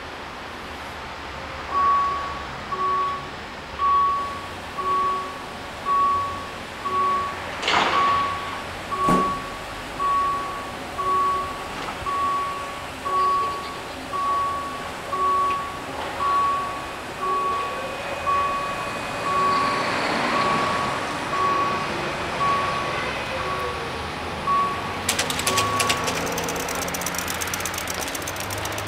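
Level-crossing warning bell dinging about once a second, starting about two seconds in and stopping near the end. Two sharp knocks come about a third of the way in, and a rapid ticking near the end.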